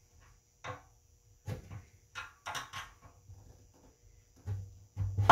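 Light knocks and clicks from a rusty steel ATV fuel tank being handled, with fingers working at its petcock opening to free the old filter screen. There are about eight of them, irregularly spaced, and the loudest comes near the end.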